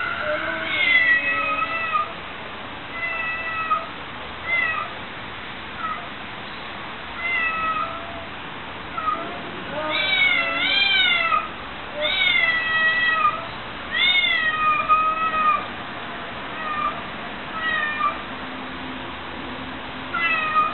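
Tomcats yowling at each other in a territorial standoff: a series of drawn-out, wavering howls, loudest and longest around the middle, with shorter calls between.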